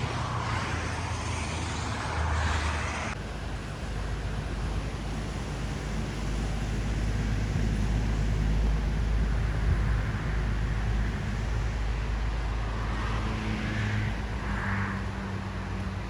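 Car driving along a road: a steady low rumble of engine and tyres, with a brief hiss during the first three seconds.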